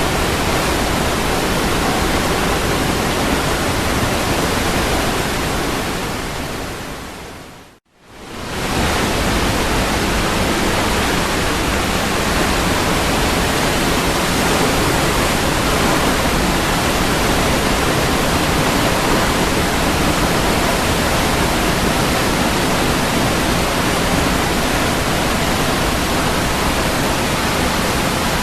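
Steady rushing of a waterfall, an even hiss with no distinct splashes. About six seconds in it fades away to silence, then fades straight back up a second later and runs on evenly.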